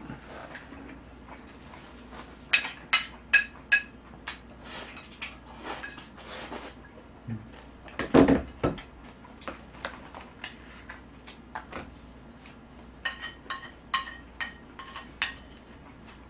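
Metal spoon and chopsticks clinking and scraping against ceramic plates, scattered taps with a few short ringing clinks, and one louder knock about eight seconds in.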